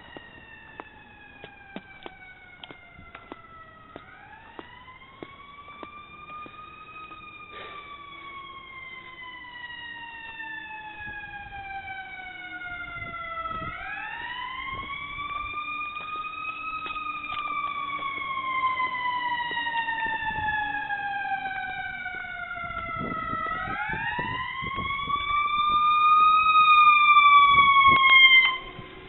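A siren wailing slowly, three rises in all: each climbs over about three seconds and then slides down over about six. It grows steadily louder and cuts off suddenly near the end.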